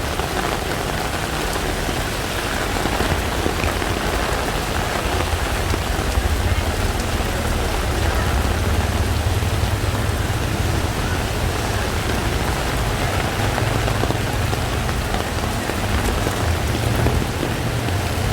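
Heavy tropical rain pouring steadily on a flooded city street, with a low rumble underneath that grows stronger about a third of the way in.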